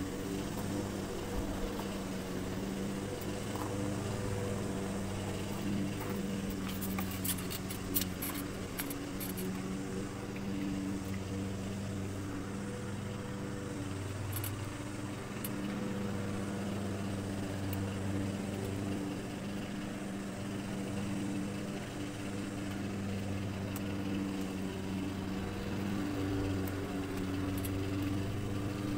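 An engine running steadily with an even hum, and a few light clicks about seven to nine seconds in.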